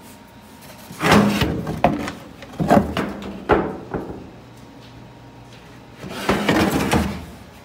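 Several short bursts of scraping and knocking, with a sharp knock about three and a half seconds in and a longer scrape near the end.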